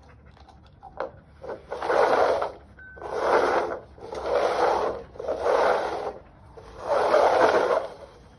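Three upturned plastic cups being shuffled around on a tile floor: five scraping slides, each under a second to about a second long.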